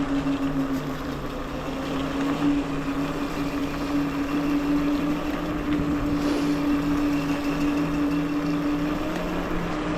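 Wolf King GTR electric scooter riding with its rear brake disc rubbing on the pads: a rhythmic pulsing rub about three times a second, with a steady whine and wind noise. The disc is either bent or the wheel is out of alignment.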